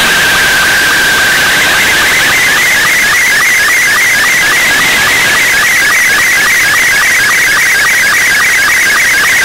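Slow-scan TV picture signal in Scottie 2 mode, received on shortwave and heard through the receiver's audio: a steady tone for about the first second, then a fast, regular warble of tones with short ticks that repeats several times a second as the picture lines are sent, over a background of shortwave hiss.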